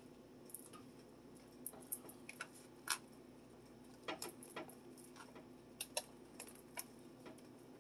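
Faint, irregular small clicks and taps as sliced mushrooms are dropped by hand onto a pizza and a plastic tub is handled, over a steady low hum.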